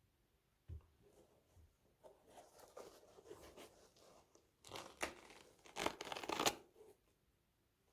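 Packaging paper rustling and tearing as a sneaker box is unpacked by hand, loudest in a few bursts past the middle, with a soft thump about a second in.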